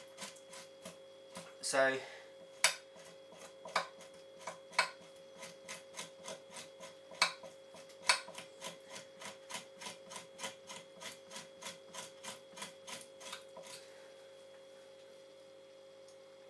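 Dull stainless steel kitchen knife scraping membrane and leftover meat off the flesh side of a fox hide in quick repeated strokes, about three a second. A few strokes are louder than the rest, and the scraping stops a couple of seconds before the end.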